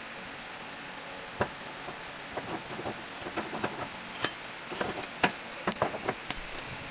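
Irregular sharp metallic taps and clinks of a hand tool working against a driveshaft clamped in a steel bench vise. They begin about a second and a half in and come thicker and louder in the second half, over a steady background hiss.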